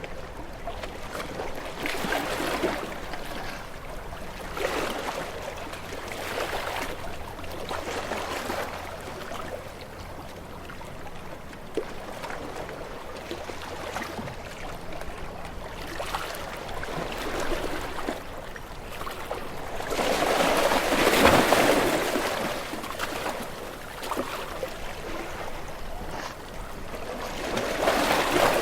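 Waves washing onto a beach shore in irregular swells of surf, the biggest about two-thirds of the way through and another near the end.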